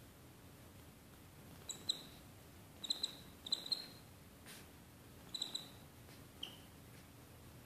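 Short, high-pitched animal squeaks coming in quick clusters of two or three, four clusters in all, with a single lower squeak near the end.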